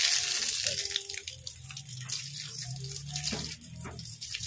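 Hissing water spray from a hose-end car wash spray nozzle. The spray gets quieter about a second in.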